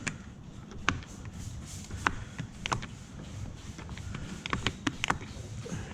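Scattered sharp clicks and taps at an uneven pace, from tinting tools handled against a car door's glass and trim, over a low background rumble.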